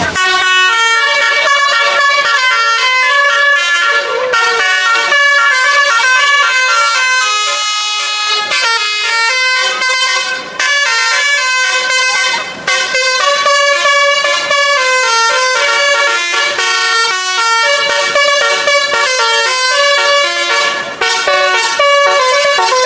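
Indonesian 'telolet' multi-tone bus horn (Basuri) playing a fast tune, its notes stepping up and down almost without a break, with a couple of brief gaps partway through.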